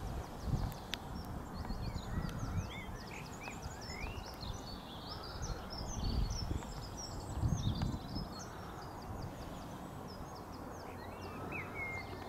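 Several small birds singing and chirping, many short rapid notes and trills, over uneven low rumbling gusts of wind on the microphone.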